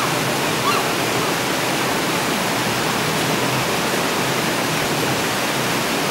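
Steady rush of a river running over rocks, with two brief high chirps in the first second.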